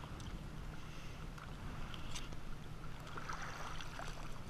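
Wind buffeting the microphone over choppy water lapping at a kayak hull, with light splashes of clam chum tossed into the water, the most distinct about three seconds in.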